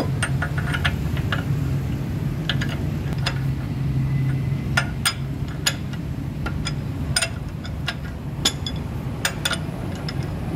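Sharp metal clinks, about a dozen at irregular intervals, from a socket and steel bar being worked on the hub bolts of a brake rotor assembly. A steady low hum runs underneath.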